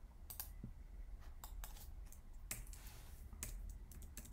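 Faint computer mouse and keyboard clicks, a dozen or so at irregular intervals, over a steady low hum.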